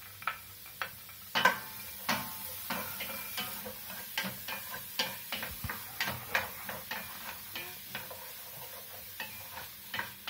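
Wooden spatula scraping and knocking against a stainless steel pot as chopped onion is stirred while it fries in oil, over a light sizzle. The knocks are irregular, the loudest about a second and a half in.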